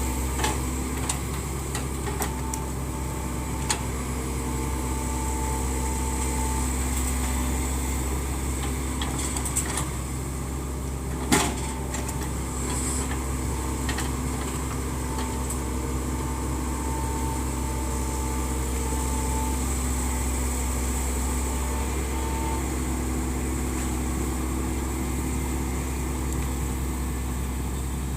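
Hitachi Zaxis 110 excavator running steadily while digging, with a higher whining tone that comes and goes. A few sharp knocks sound, the loudest about eleven seconds in.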